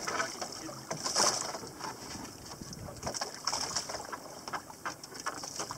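Water lapping and splashing against the hull and bamboo outrigger of a small drifting boat, with irregular slaps and a steady hiss of wind and sea.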